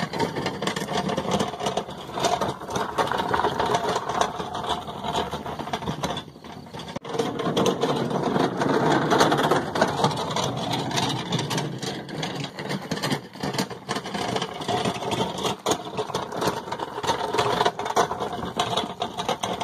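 Wheelbarrow rolling over gravel, rattling steadily, with a brief lull about six seconds in.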